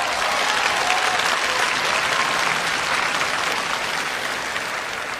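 Audience applauding, a dense steady clapping that eases slightly toward the end.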